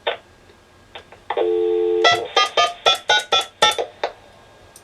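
Payphone line audio. A few clicks, then a steady dial tone for about half a second, cut off by a quick run of about ten touch-tone (DTMF) beeps as a long-distance number is keyed in.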